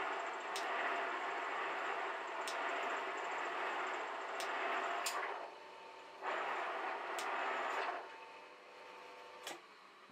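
Elliott metal shaper cutting a steel tool holder: a steady scraping hiss of the tool in the cut, with a sharp click about every two seconds. The cutting noise breaks off briefly just past halfway and dies away near the end.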